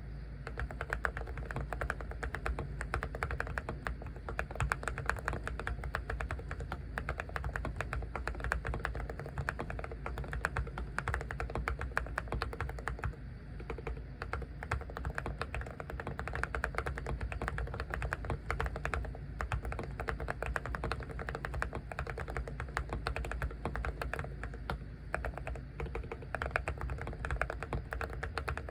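Seraki Zen75 low-profile keyboard with ceramic keycaps being typed on, a fast, continuous run of clicking keystrokes with a brief lull about thirteen seconds in.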